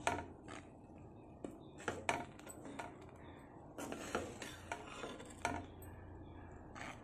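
Metal ladle stirring simmering milk and vermicelli in a pan, clinking and scraping against the pan in irregular knocks, over a low steady hum.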